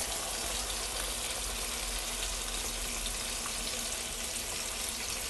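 Raw chicken pieces sizzling steadily in hot fat in a sauté pan over medium heat as they start to brown.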